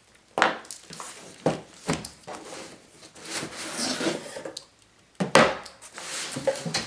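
Cardboard shipping box being handled and opened after its packing tape is cut: a few sharp knocks and thuds of the box and flaps, with scraping and rustling of cardboard between.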